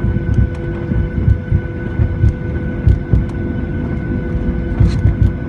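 Cabin noise inside a Boeing 737 taxiing, heard from a seat over the wing. The jet engines hum and whine steadily at low power over a low rumble, with uneven low thumps from the rolling airliner.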